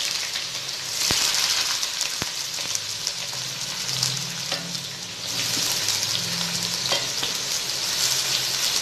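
Sliced onions and slit green chillies frying in hot oil in an aluminium pot: a steady sizzle that swells and eases, with a few sharp crackles.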